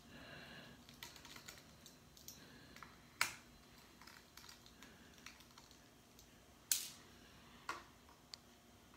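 Faint, scattered clicks and taps of a small precision screwdriver on tiny screws and the plastic frame of an opened Kindle e-reader, with three louder clicks about 3 s, about 7 s and just before 8 s in.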